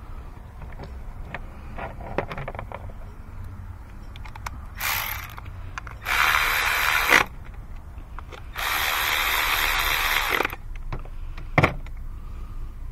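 Cordless electric ratchet running in three short spurts, the last about two seconds long, driving down an ignition coil hold-down bolt, with light tool-handling clicks around it. A single sharp knock comes near the end.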